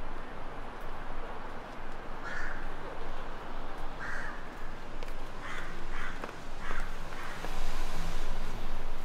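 A crow cawing five times in short, harsh calls, the last three close together, over steady background noise that grows louder near the end.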